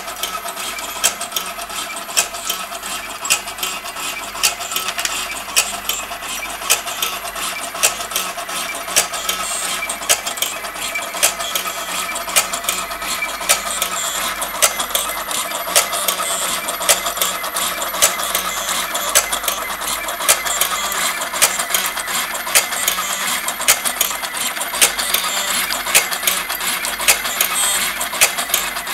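Automatic wire cutting and stripping machine running, its blades clicking shut about twice a second over a steady motor hum as it feeds, cuts and strips wire.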